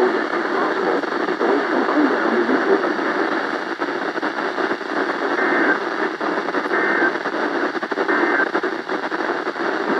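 Weather radio on channel 1 picking up a weak, distant NOAA Weather Radio broadcast: steady heavy static with a faint voice barely audible beneath it. Three short, faint tones sound in the second half.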